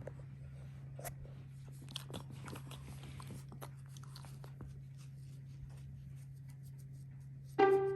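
A Boston terrier chewing, faint scattered crunches and clicks over a steady low hum. Plucked guitar music comes in near the end.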